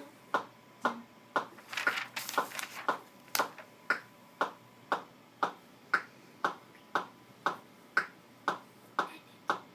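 Steady finger snapping, about two sharp snaps a second, keeping time as the ticking of the pipe bomb.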